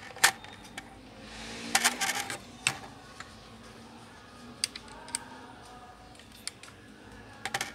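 Scattered sharp clicks and light knocks, the loudest just after the start and a short cluster about two seconds in, with a faint low background hum.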